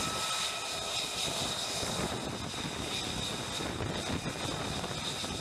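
Single jet engine of an F-35C running on the flight deck: a steady rush with a high, thin whine.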